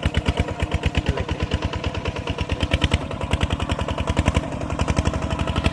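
A farm machine's engine running with an even, rapid chugging of about ten beats a second; the beat shifts slightly about four and a half seconds in.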